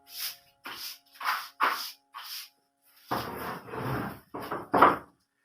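A series of short brushing or scraping strokes from household cleaning, about two a second, growing heavier and denser about three seconds in.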